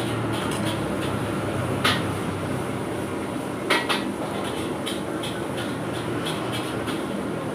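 A spoon clinking against a plate during a meal: a few sharp clinks, loudest about two seconds in and near four seconds, with lighter ticks between, over a steady low rumble.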